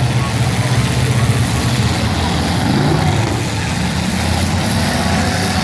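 Demolition derby car engines running loudly with a steady low drone, which eases a little about two seconds in.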